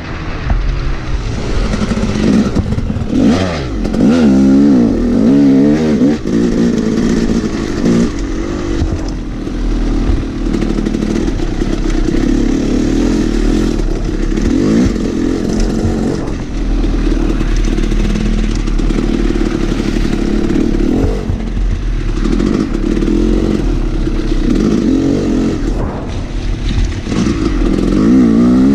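Dirt bike engine running under load, its pitch rising and falling as the throttle is worked, strongest at the start and again near the end. Knocks and rattles come from the bike over rough ground.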